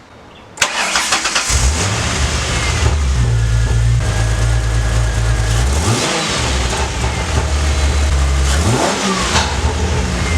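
Ford Mustang's 4.0 V6 starting up about half a second in, then running with two short revs. The spark plug, JB-Welded into its hole, stays in.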